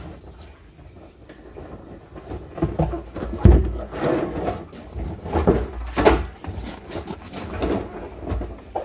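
Hands rubbing and wiping a hollow blue plastic drum, with irregular knocks and thumps against it as it is handled. It starts quiet and the knocks begin about two and a half seconds in.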